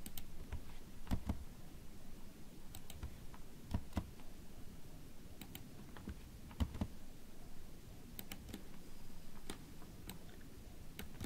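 Computer keyboard keystrokes and mouse clicks, faint and irregular, a few scattered clicks every second or two over low room hum.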